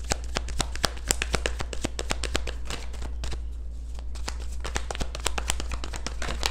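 A tarot deck shuffled by hand: rapid, crisp card clicks and flicks, thinning out a little past the middle and picking up again near the end.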